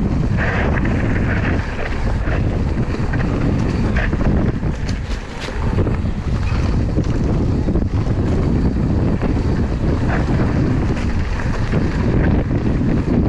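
Wind buffeting an action camera's microphone during a mountain bike ride, over a steady rumble of tyres on a dirt trail, with scattered clicks and rattles from the bike.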